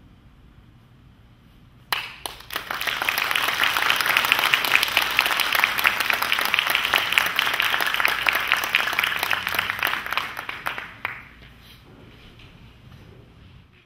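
Audience applauding at the end of a string orchestra piece. The clapping starts abruptly about two seconds in, stays steady, and dies away about eleven seconds in.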